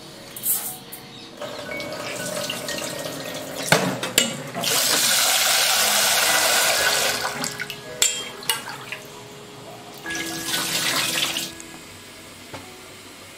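Tap water running into a steel bowl of rice as the rice is rinsed at a steel sink. The water runs loudest for about two seconds in the middle, with a shorter run later, and a few sharp knocks of metal come between.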